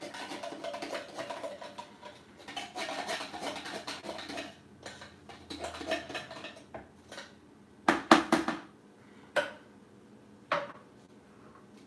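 Metal spoon scraping and clinking inside a can of Nestlé condensed milk as it is emptied into a plastic container. In the second half come several sharp, separate taps of the spoon on the can.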